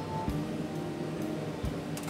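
Background music with steady held notes, and a couple of faint knocks.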